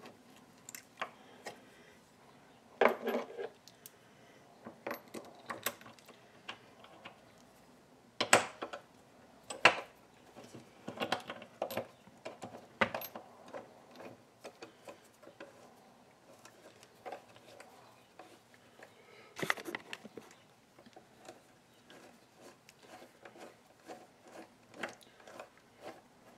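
Scattered small metallic clicks and clinks, a few sharper than the rest, as hex-head bolts are fitted and turned into the top of a coaxial reloading press's cast head.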